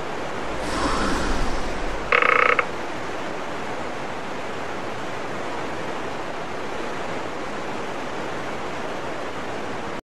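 Steady rushing of river water. About half a second in, a swelling whoosh with a low rumble rises over it. About two seconds in comes a short, loud, pitched sound effect.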